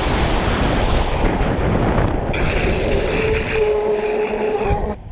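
A vehicle driving fast past the microphone with heavy wind noise. Its engine holds a steady tone for a couple of seconds, then the sound drops away suddenly near the end.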